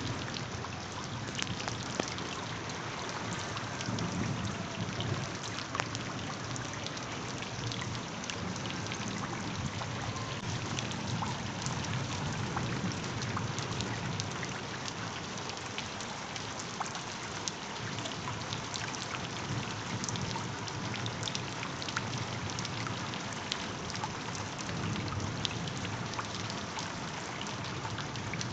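Recorded rain ambience: steady rainfall with many small, sharp drop clicks over a low rumble that swells and fades every several seconds.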